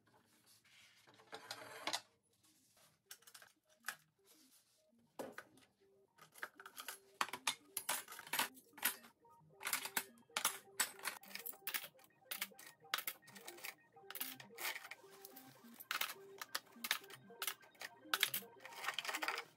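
Paper towel pulled and torn from the roll near the start, then metal cutlery clinking and clattering as spoons, forks and knives are dropped and sorted into a plastic drawer organiser, many quick sharp clinks. Soft background music underneath.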